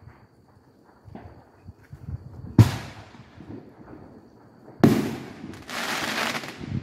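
Aerial firework shells bursting: two loud, echoing bangs about two seconds apart, the second followed by about a second of hissing crackle.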